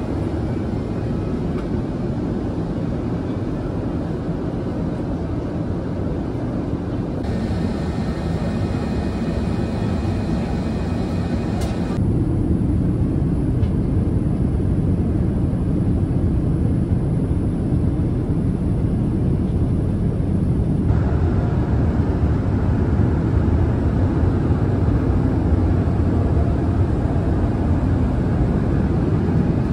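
Steady in-flight cabin noise of an Airbus A380 airliner, a low rumble from the engines and airflow, a little louder from about twelve seconds in.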